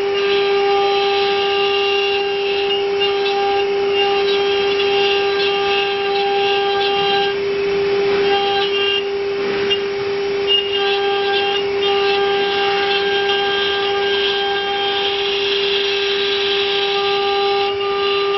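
CNC router spindle running with a steady high whine. Partway through, the upper overtones briefly fade, a rougher noise comes in, and there are two short clicks about ten seconds in.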